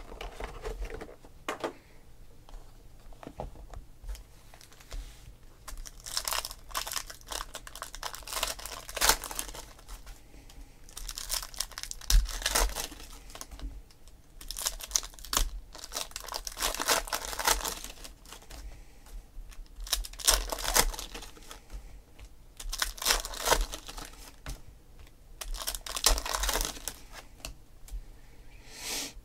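Foil wrappers of Donruss Optic football card packs crinkling and tearing open in repeated bursts of a second or two, with cards being handled and shuffled between them.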